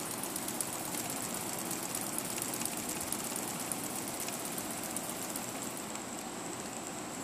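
Weeden Model 8 toy steam engine running fast, with a rapid, dense ticking from the spinning engine. About five and a half seconds in, the ticking fades and a thin steady high tone is left.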